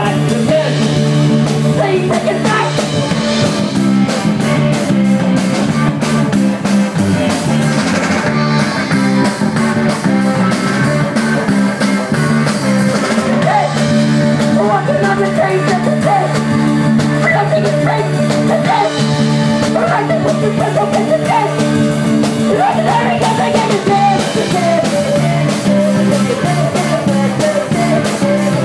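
Rock band playing live and loud: electric guitar and drum kit with a steady bass line, and a voice singing over them.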